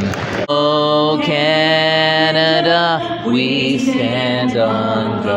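A national anthem sung over the arena's sound system, with long held notes. It starts abruptly about half a second in.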